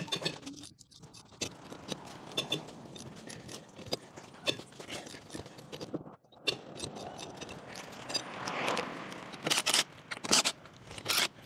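Metal clinking and scraping of a wrench and socket working a car wheel's lug nuts as the wheel is loosened, with scattered clicks throughout and a few short, louder bursts near the end.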